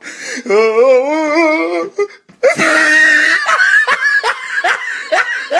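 A man laughing loudly: first a long laugh with a wavering pitch, then, after a brief pause, a run of quick ha-ha bursts.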